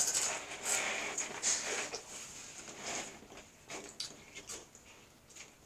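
Crunchy corn snacks (Hot Fries and Flamin' Hot Cheetos) being chewed and rummaged in a pile. The irregular crisp crackles are busiest in the first couple of seconds, then thin out.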